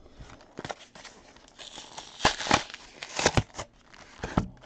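Baseball trading cards and their plastic pack wrapper being handled, making rustling and crinkling with sharp little clicks. The sound is loudest and busiest in the middle.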